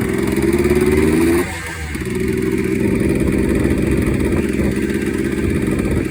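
Two-stroke single-cylinder engine of a Yamaha Blaster quad with a freshly rebuilt top end, running under way. The revs climb for about a second and a half, drop off sharply, then the engine pulls at a steady pitch.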